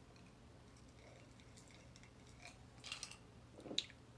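Near silence with a few faint clinks and clicks about three seconds in, from a glass of ice and a soda can being handled and drunk from.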